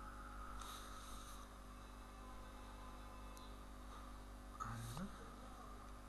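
Quiet room tone over a steady low electrical hum, with a soft breath or sniff about a second in and a short low throat sound rising in pitch about four and a half seconds in.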